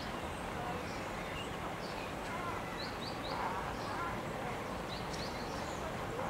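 European robin song: thin, high, short notes in small groups, about three seconds in and again about five seconds in, over steady background noise.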